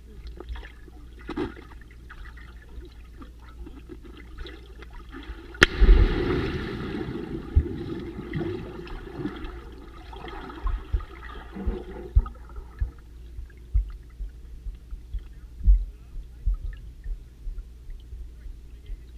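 Underwater sound of air bubbles: low muffled knocks, then a sharp click about six seconds in followed by a burst of bubbling and gurgling that dies away some seven seconds later.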